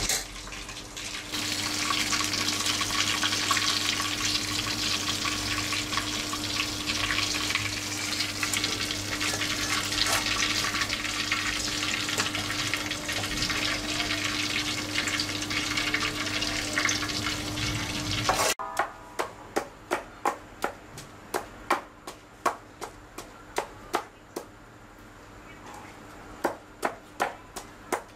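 Fish frying in oil in a wok: a steady sizzle with a low hum under it. It cuts off suddenly and gives way to a series of sharp knocks, about two a second, like chopping on a board.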